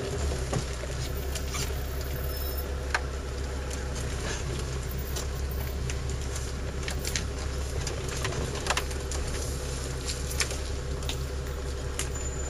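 Off-road 4x4's engine running steadily, heard from inside the cab, with scattered sharp knocks and rattles as it crawls over a rough forest track.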